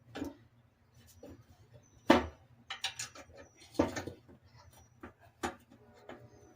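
Scattered knocks and clunks of tools and metal parts being handled, the loudest about two seconds in, with a few lighter clicks between.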